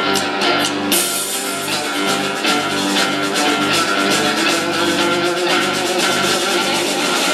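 Live blues band playing an instrumental passage: electric guitar over bass and drum kit, getting fuller about a second in.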